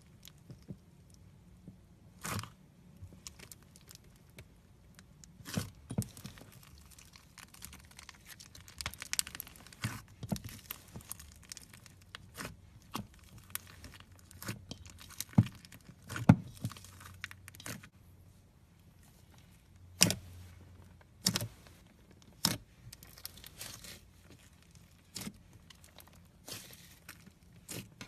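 Crunchy slime being squeezed and pressed by hand, giving irregular crackling pops and crunches with a few louder snaps.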